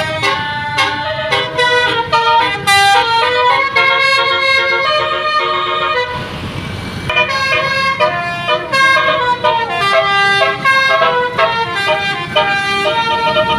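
Basuri musical horns playing quick melodies of short, changing notes in a horn battle, the notes often overlapping. About six seconds in the tunes break off for a moment under a brief hiss, then resume.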